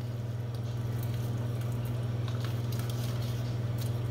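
Pasta water at a rolling boil in a large pot, bubbling over a steady low hum, with scattered light clicks and soft squishing as a slotted spoon stirs thick cream sauce.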